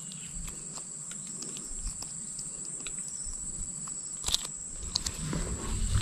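Steady high-pitched chorus of insects, with scattered small clicks and a couple of sharper knocks about four seconds in and near the end.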